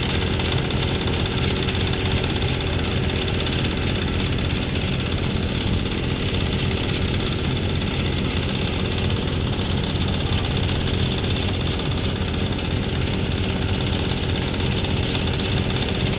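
An engine running steadily at an even idle-like pace, a constant low drone with no change in speed.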